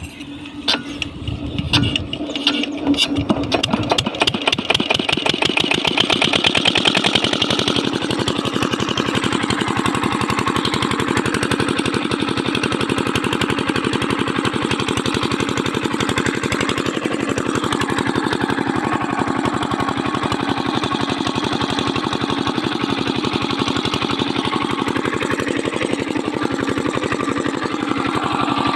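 A freshly overhauled 5 hp single-cylinder diesel engine starting: a few uneven beats at first, then it catches and picks up speed, and from about eight seconds in it runs steadily.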